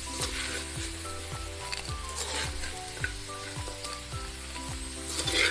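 Background music with a steady beat of about two kicks a second and a melody of short held notes, over a steady hiss.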